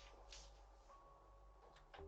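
Near silence, with faint background music of softly held notes.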